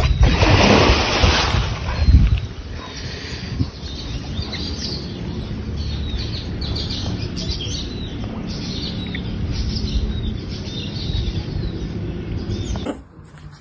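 Outdoor ambience with birds chirping again and again. A loud burst of noise fills the first two seconds, ending in a thump just after two seconds.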